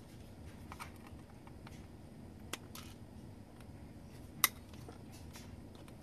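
Flush side cutters snipping the excess leads of LEDs on a circuit board: two sharp snips about two seconds apart, the second louder, with small handling ticks between.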